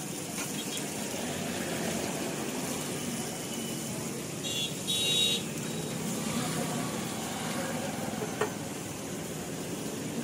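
Steady background noise at a street food stall, with a brief high-pitched ringing tone about halfway through and a single light tap later on.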